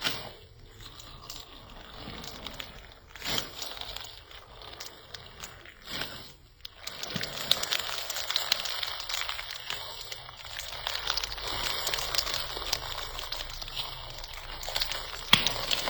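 Slime being squeezed and worked by hand, making a dense run of small clicks and pops that grows busier about halfway through, with a few sharper clicks along the way.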